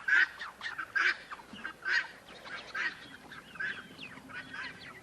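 Poultry calling: a loud call repeats about once a second and grows fainter, with many fainter high peeping calls among them.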